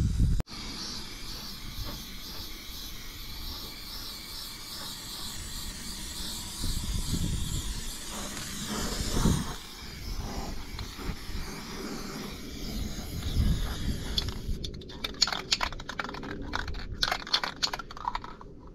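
Aerosol spray-paint can hissing as it sprays for the first half. About fifteen seconds in come quick rattling clicks: the can being shaken, its mixing ball knocking inside.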